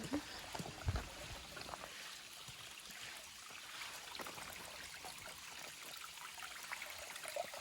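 A small stream running and trickling as a steady, fairly faint wash, with a few short knocks, the strongest about a second in.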